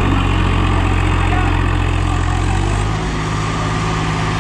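Two diesel tractor engines, a New Holland 3630 and a Swaraj 855 FE, running at a steady idle; the engine note shifts about three seconds in.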